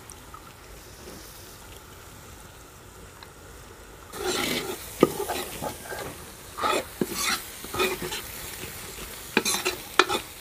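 Masala sizzling in a metal wok. From about four seconds in, a steel ladle stirs and scrapes against the wok in quick, irregular strokes.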